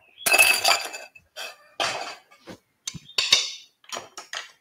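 Metal spoon scraping and knocking in a stainless-steel mixing bowl and pan as tabbouleh and nuts are tipped and tossed, with about ten irregular clatters and faint metallic ringing.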